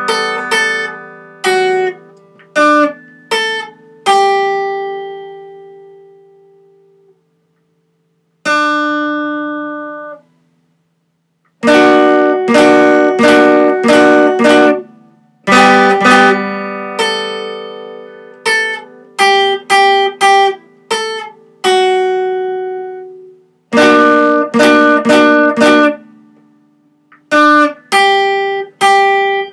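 Acoustic guitar strummed in short runs of chords, some left to ring and die away and others cut off sharply, with a few pauses of near silence between phrases.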